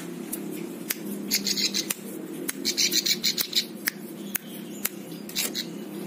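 Ciblek sawah, a small prinia, giving sharp, dry, scissor-like clicking calls that run into quick chattering bursts about a second and a half in, around three seconds, and again near the end. A steady low hum lies underneath.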